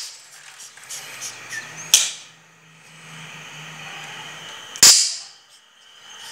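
Two sharp cracks about three seconds apart, each fading quickly, over a faint low hum.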